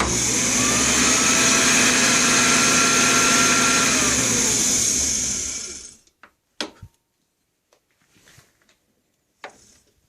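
1923 South Bend lathe, driven by a 2 hp permanent-magnet DC treadmill motor, switched on and running in direct drive with the back gears disengaged: a loud motor whine that rises in pitch as it comes up to speed, then falls and winds down after about five seconds when it is switched off. A few sharp clicks follow near the end.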